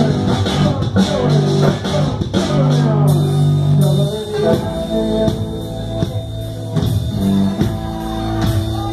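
A live band playing loud dance music, with banjo and drums.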